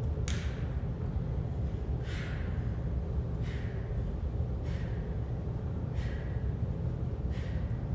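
A woman's sharp exhales in time with each crunch repetition, six short puffs about one every 1.3 seconds, over a steady low hum.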